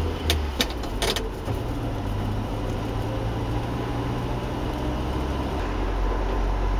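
Car running along the road, heard from inside the cabin: a steady low engine drone with road noise, and a few short sharp clicks in the first second or so. The low drone grows a little stronger near the end.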